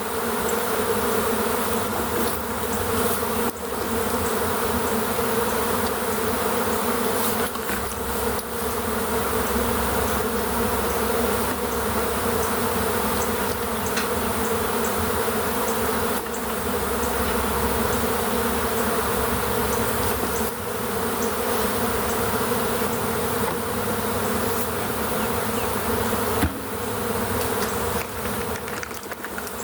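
Loud, steady buzzing hum of a large honey bee swarm in flight, the bees stirred up after their cluster has been knocked loose.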